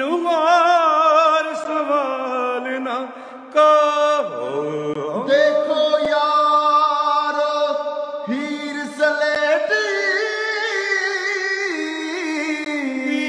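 A man singing unaccompanied in slow, drawn-out phrases: long held notes with wavering ornaments and slides between pitches, with a short breath break about three and a half seconds in.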